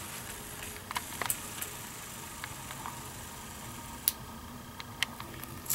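Small metal clicks from a spinning-disc aquarium keychain being turned in the fingers: a few sharp ticks scattered over faint room tone, the sharpest about four seconds in.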